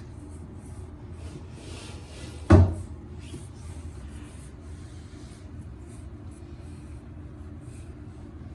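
A single hard knock about two and a half seconds in, over a steady low hum and soft intermittent rustling.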